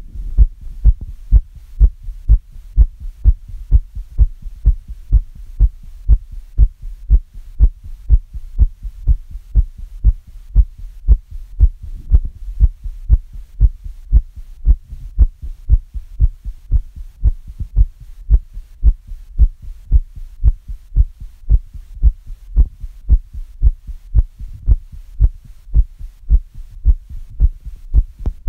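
A human heartbeat, a little fast, beating in a quick, steady rhythm of low, dull thumps.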